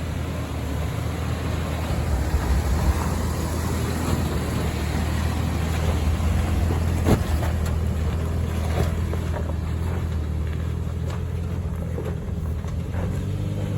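A four-wheel drive's V6 engine working hard up a steep, slippery track, its wheels spinning for grip. A sharp knock sounds about seven seconds in.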